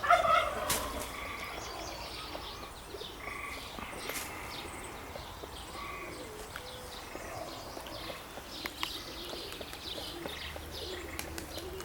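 Birds chirping and calling in short scattered notes, with occasional faint clicks and a brief louder sound right at the start.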